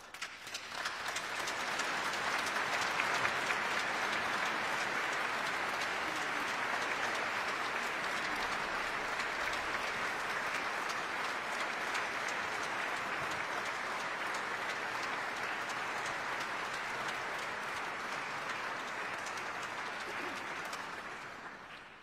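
Audience applauding: a few first claps, then full applause within about a second, holding steady and fading out near the end.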